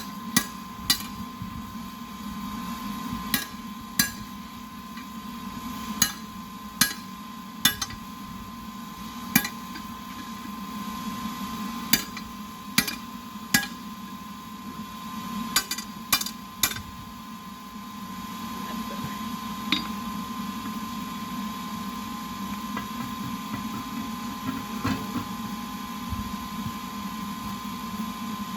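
Forging hammer striking metal on an anvil: single ringing blows at irregular intervals, about fourteen in the first two-thirds, then only two or three light ones. A steady hum runs underneath.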